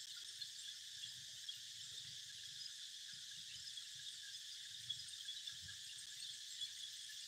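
Steady, unbroken chorus of insects chirring, high-pitched and dense, with faint low rumbles beneath.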